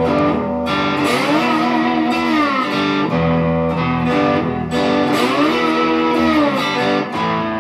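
Red Squier Stratocaster-style electric guitar playing a slow blues fill in which notes glide up and back down in pitch twice.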